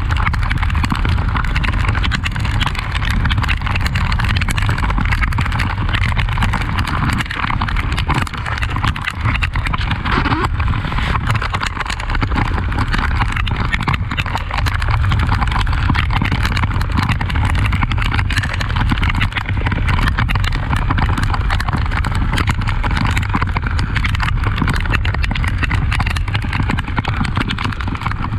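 Honda XRE 300's single-cylinder engine running under way on an off-road track, with a steady rushing noise and many short knocks and rattles over the rough ground.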